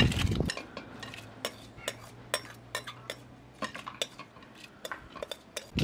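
A metal spoon clinking and scraping against a bowl, about a dozen sharp, separate clinks, as uncooked rice is scooped from it into a pot of water. A louder low rumble stops about half a second in.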